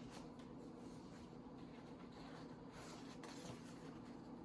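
Near silence: room tone with a faint steady hum and a few faint soft ticks.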